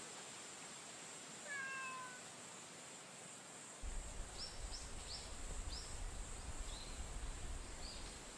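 A street cat meows once, a short, slightly falling call about a second and a half in. From about halfway through come a run of faint, short, high chirps over a low rumble.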